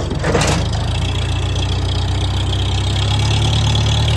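Engine idling steadily while running on fuel gravity-fed from a container instead of through its fuel pump. A brief rushing swish comes about half a second in.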